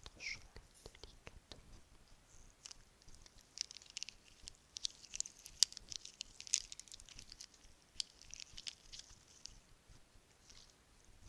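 Bracelets handled and moved against each other: irregular light clicks and crisp clinking, busiest in the middle.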